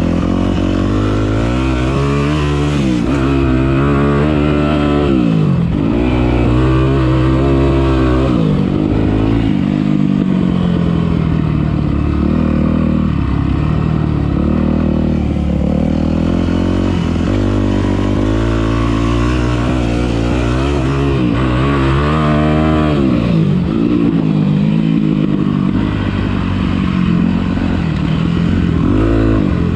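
Dirt bike engine under way on a trail, its pitch climbing and dropping over and over as the throttle is opened and closed, every second or two.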